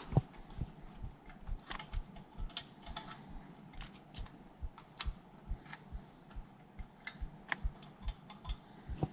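A string of light, irregular clicks and soft knocks, two or three a second, some dull and some sharp.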